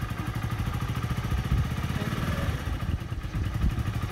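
Honda Pop small single-cylinder four-stroke motorcycle engine idling steadily, with the bike in neutral and standing still.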